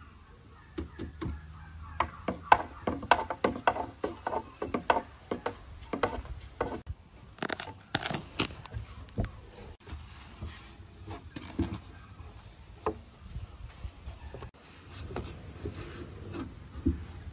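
Handling sounds of baklava making: a dense run of sharp clicks and knocks for about the first eight seconds, then scattered ones with some scraping, from hands and tools working dough and ground walnuts.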